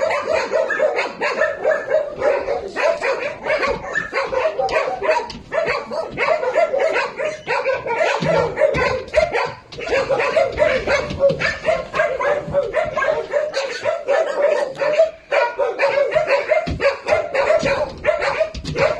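Several kennelled dogs barking and yipping without pause, the barks overlapping one another.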